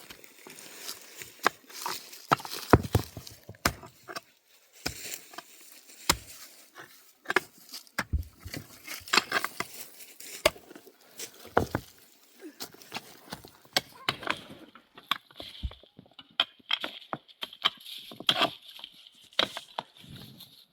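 Irregular knocks and chopping strikes from hand building work, with scraping and handling noise between them. In the last several seconds a steady high hiss comes in under the strikes.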